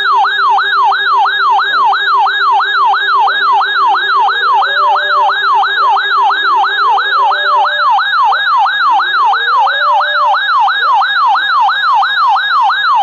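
Weather radio alert siren: a loud electronic warble sweeping up and down about three times a second, sounding without a break and cutting off abruptly at the end.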